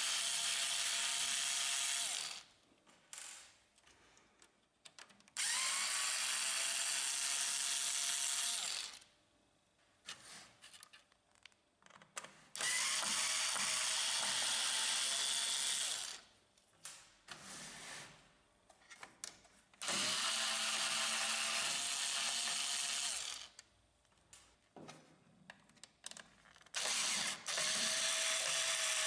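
Cordless electric screwdriver running in five runs of about three seconds each, with a steady motor whine, unscrewing the screws of the printer's circuit board. Small clicks and handling noises fall in the gaps between runs.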